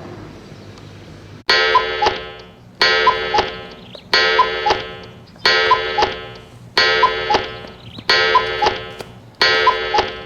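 An electronic chime-like tone, struck sharply and fading, repeated seven times about once every 1.3 seconds, following a faint steady rumble at the start.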